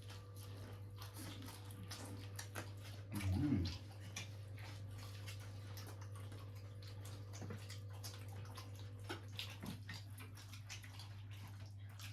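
Eating sounds: wet chewing and mixing of food, with many small clicks and crackles of fingers and food against a plate, over a steady low hum. A brief low murmur comes about three and a half seconds in.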